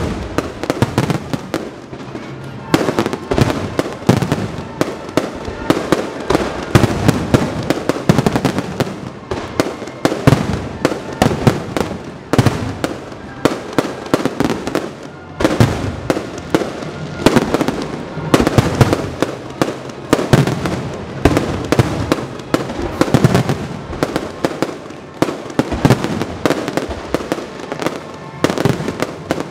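Aerial fireworks display: shells bursting and crackling in a dense, unbroken barrage of many bangs a second.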